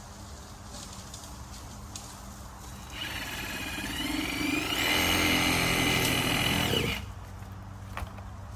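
Power saw spinning up with a rising whine, running at full speed for about two seconds, then stopping abruptly about seven seconds in, while cutting a palm root wedged in a skid steer's undercarriage.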